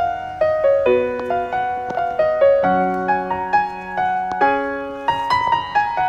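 Background instrumental music: a slow piano melody, single notes struck one after another, each fading away.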